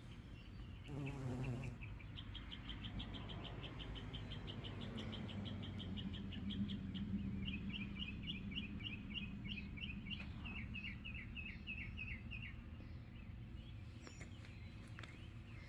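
Bumblebees buzzing at the flowers, a low steady droning hum that swells briefly about a second in as one passes close. Over it a rapid series of high chirps repeats several times a second, stopping about three seconds before the end.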